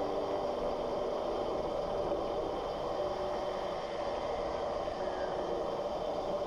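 Steady riding noise from a loaded fat bike climbing: a constant hum of wide fat tyres rolling, mixed with wind on the microphone.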